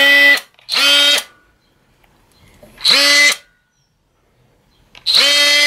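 DeWalt XR cordless oscillating multi-tool run in four short trigger bursts of about half a second each: the motor spins up quickly to a steady high hum, then stops. The tool is being powered by a newly assembled 18/20 V battery pack.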